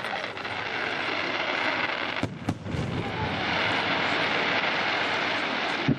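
Fireworks going off: a continuous hissing crackle with a few sharp bangs, two about two and a half seconds in and one near the end.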